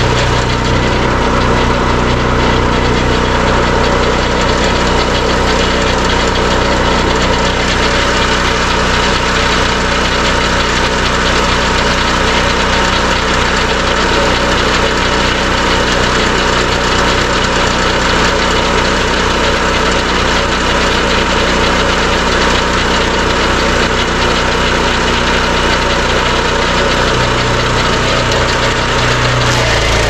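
Engine of a Turbo Sawmill Warrior swingblade sawmill running steadily and loud without a break.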